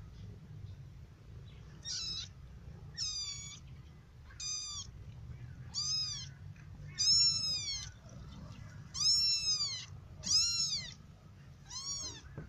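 A kitten mewing: eight high-pitched calls, each rising and then falling in pitch, about one every one and a half seconds.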